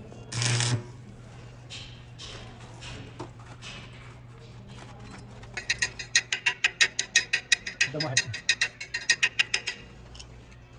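Ratchet wrench clicking rapidly, about eight clicks a second for some four seconds from about halfway in, as a bolt is turned. A short burst of scraping noise comes just after the start.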